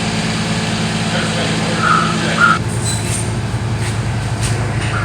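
Delivery truck's engine idling steadily, with a couple of short squeaks about two seconds in.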